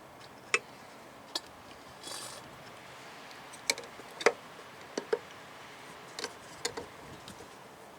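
Irregular light clicks and taps, with a brief hiss about two seconds in: a turkey baster working in the clutch fluid reservoir, drawing out the old brake fluid.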